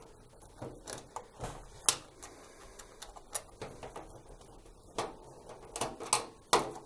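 Hand screwdriver undoing the screws that hold a tumble dryer's sheet-metal heater in place: scattered light clicks and taps of the tool on the screws and metal bracket, at irregular intervals, the sharpest about two seconds in.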